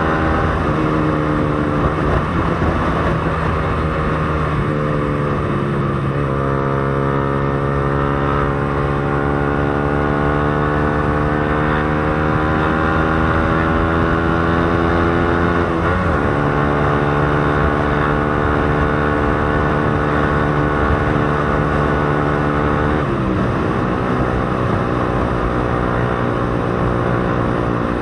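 Motorcycle engine with a newly fitted aftermarket Akrapovic exhaust canister, under way. The exhaust note climbs slowly in pitch and then drops sharply four times, as the gears change.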